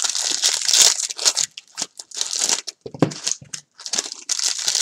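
Foil wrappers of trading-card packs crinkling and being torn open by hand in an irregular run of crackles, with the cards inside being handled.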